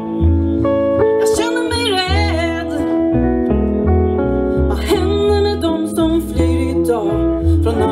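A live band playing a song: bass guitar moving between held low notes under guitar chords and drum hits, with a wavering melodic lead line above.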